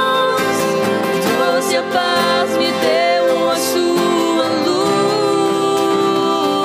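Music: a song performed live, a voice singing over guitar.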